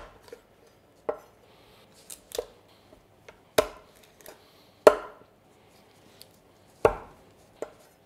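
Large chef's knife cutting a raw chicken into pieces and knocking down onto an end-grain wooden butcher block: about seven sharp chops at uneven intervals.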